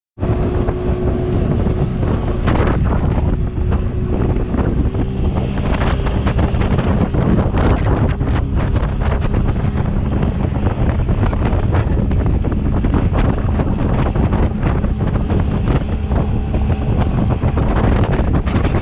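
Motorboat under way, its engine running steadily beneath heavy wind buffeting the microphone.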